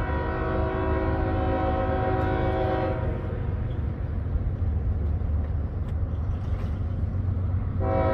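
Freight train diesel locomotive's multi-chime air horn blowing for a grade crossing. One long blast ends about three seconds in and another begins near the end, over a steady low rumble.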